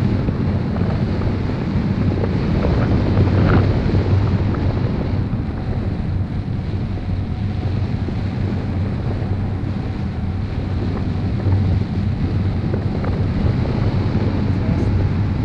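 Wind buffeting the camera microphone in paraglider flight: a steady, deep rush.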